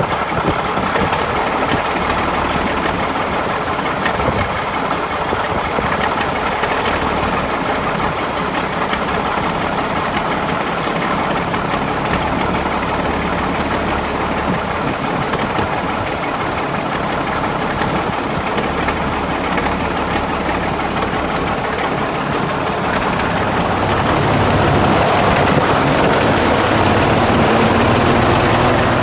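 Caterpillar D8 crawler tractor's engine running steadily, growing louder for the last few seconds.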